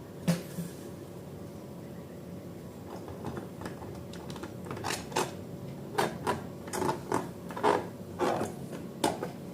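Hands working slime and balloon materials: a single click near the start, then a run of short rubbing strokes that come faster and louder in the second half.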